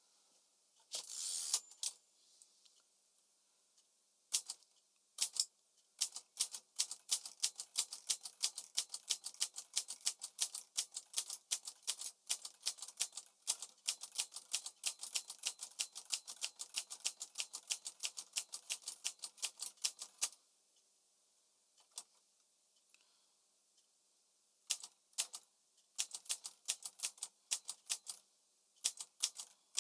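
Smith-Corona Calypso manual typewriter being test-typed: a long run of keystrokes at about four to five a second, a pause, then a shorter burst of keystrokes near the end. A brief rasping sound comes about a second in.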